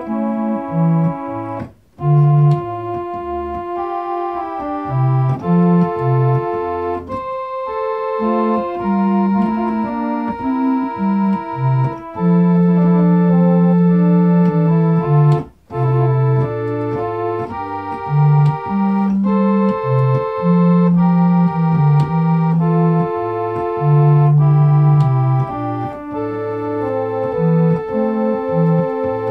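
Organ playing slow held chords over a low bass line, breaking off briefly twice between phrases: about two seconds in and again about halfway through.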